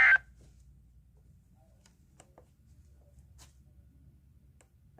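A shrill two-tone digital data burst from a weather-radio emergency alert cuts off abruptly a fraction of a second in. It leaves dead air with a faint low hum and a few faint ticks.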